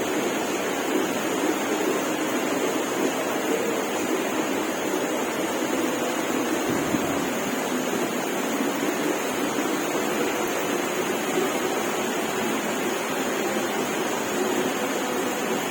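Heavy rain pouring down, a dense, steady hiss with no let-up.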